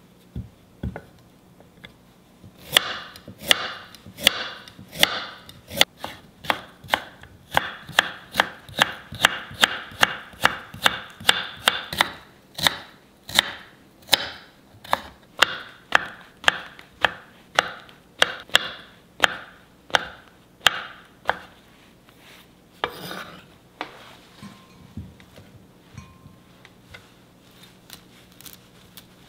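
Kitchen knife chopping carrot on a wooden cutting board: a steady run of sharp knocks, about two a second, that thins out to a few slower cuts near the end.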